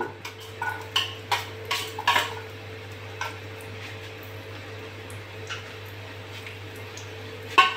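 Steel spoon clinking and scraping against a steel plate and the kadhai as garlic cloves are tipped into a little oil: a run of light clinks over the first three seconds or so, then a steady low hum.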